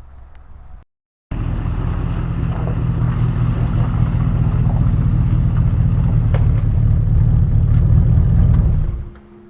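An engine running steadily at a constant speed. It starts abruptly about a second in and cuts off near the end.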